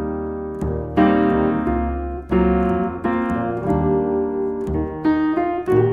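Keybird acoustic piano playing jazz ballad chords and melody, in a series of struck notes that ring and fade. Its tone is muted and mellowed by a felt strip set between the hammers and the strings.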